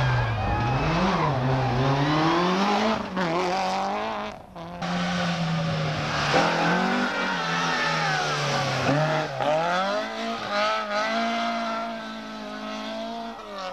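Rally car engines revving hard through a corner, their pitch rising and falling again and again with gear changes and lifts off the throttle. Near the middle the sound briefly cuts, and a Ford Escort Mk2 rally car takes over.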